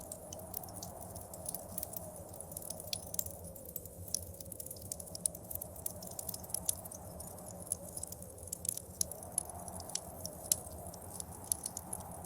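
Wood fire crackling with frequent irregular sharp pops, over a steady blizzard wind whose moaning swells and fades.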